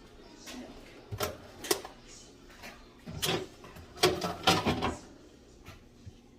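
Refrigerator parts being handled and set down, a handful of separate hard knocks and clatters about a second apart.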